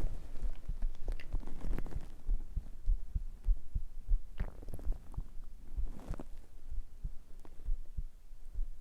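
A steady heartbeat-like pulse picked up from a person's belly: regular low thumps, about one and a half a second, with two brief faint gurgles around four and a half and six seconds in.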